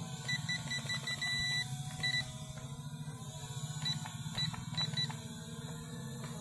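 Small quadcopter drone hovering with a steady low hum, while rapid high-pitched electronic beeps, about five a second, sound in two runs: one near the start and another past the middle.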